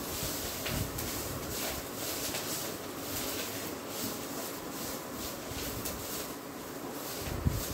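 Spatula stirring drumstick leaves and walnuts in a steel pot on an induction cooktop: a steady hiss of cooking with irregular scraping strokes, and a short knock near the end.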